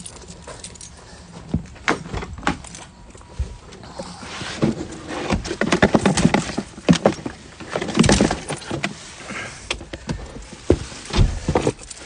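Keys jangling among rustling and short knocks and clicks from handling, as a person climbs into a car with a box. The handling gets louder in the second half.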